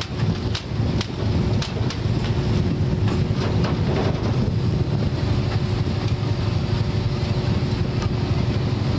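Boat engine running steadily, with wind on the microphone. A few sharp clicks in the first two seconds.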